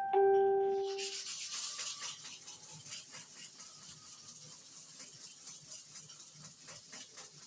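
A short metallic ring, then a hair clipper blade rubbed rapidly back and forth across an oiled sharpening stone in fast, even strokes that grow quieter.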